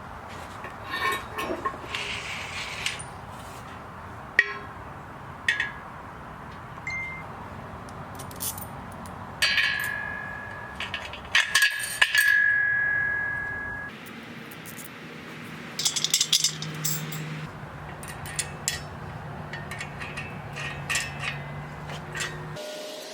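Steel squat stand parts clinking and clanking as they are handled and fitted together. A few sharp knocks about halfway through leave a ringing metallic tone that slowly dies away.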